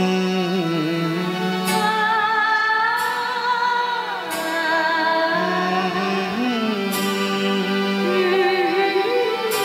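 Male voice singing a Hindi ghazal to harmonium accompaniment, holding long notes with vibrato over the harmonium's sustained reed chords.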